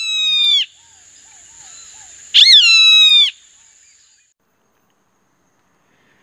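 A bird of prey screaming twice: loud, harsh calls that drop in pitch and then hold, each under a second, the second about two and a half seconds in. Between them come faint short chirps and a thin, steady high whine that fades out about four seconds in.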